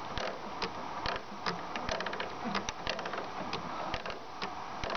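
Hand primer bulb on a Renault Scénic II diesel fuel line being pumped to bleed air from the circuit after a fuel filter change. It gives a string of irregular clicks, about three a second, over a steady background noise.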